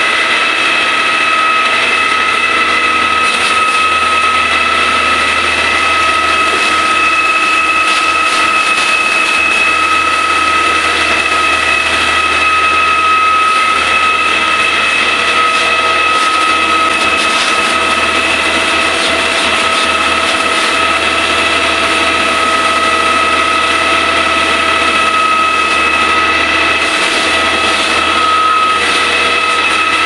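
Truck-mounted concrete pump running steadily, with a high, steady whine over the engine.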